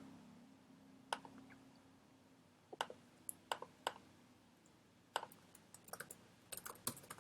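Faint, scattered clicks of a computer mouse and keyboard: single clicks spaced out at first, then a quicker run of clicks near the end.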